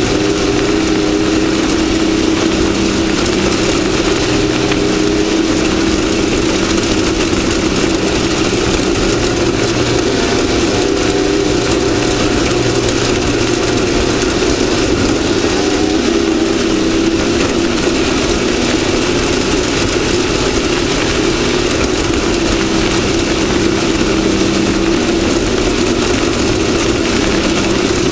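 Off-road race vehicle's engine running hard and continuously, its pitch wavering a little with the throttle, over a constant rush of noise.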